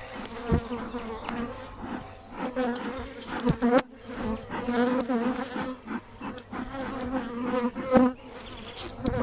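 Swarm of honeybees buzzing around an open hive during a frame inspection, the hum wavering in pitch and loudness as bees fly close past. The colony is nervous. A few sharp taps sound over the buzzing, the loudest near the end.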